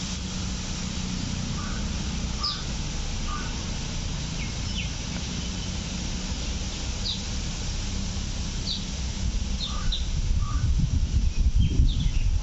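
Short bird calls scattered over a steady low background rumble. Near the end comes louder crackling and rustling as a ripe banana is pulled open and peeled by hand.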